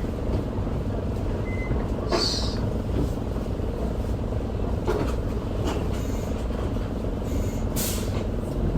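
Isuzu Erga city bus's diesel engine idling steadily, heard inside the cabin. There is a short burst of compressed-air hiss about two seconds in and another near the end, typical of the air brake system.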